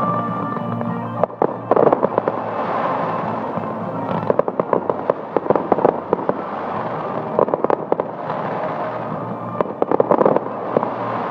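Fireworks crackling in four quick volleys of many sharp pops, over music playing underneath.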